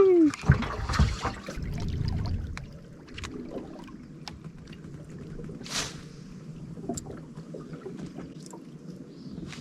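Steady low hum aboard a bass boat, with scattered light clicks and knocks and a brief rush of noise about six seconds in.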